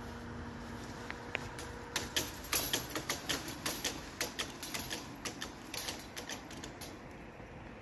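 Level-crossing barrier drives humming, the hum cutting off about a second and a half in as the booms reach the bottom; then a run of sharp clicks and rattles, several a second, fading away over about five seconds as the lowered booms and their hanging grilles settle.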